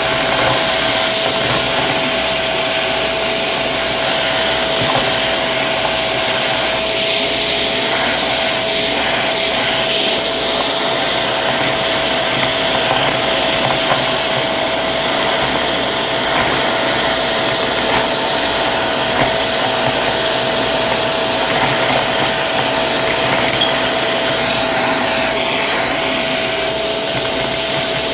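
Shark vacuum running with its crevice tool: a steady motor with a constant whine, with scattered crackles as sequins and confetti are sucked up the tool.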